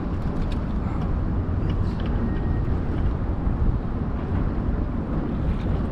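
Steady low rumble and hiss of wind on an open boat, with a few faint clicks.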